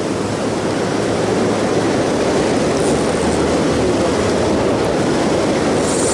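Loud, steady rush of river water spilling over a low-head dam and churning downstream in white water.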